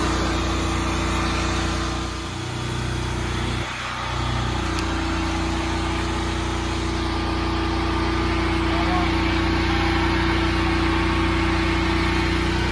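An engine running steadily: a low, even hum with a few steady tones, dipping briefly twice within the first four seconds.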